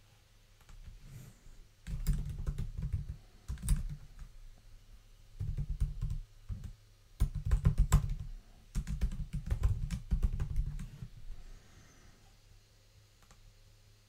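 Typing on a computer keyboard in several quick bursts of keystrokes with short pauses between them, then quiet again near the end.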